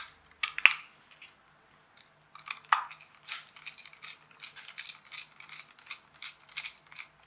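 Small plastic toy car being reassembled by hand: a couple of sharp clicks as the plastic battery cover is pressed home, then a run of light, even clicks, about three a second, as a small screwdriver turns the cover screw into the plastic body.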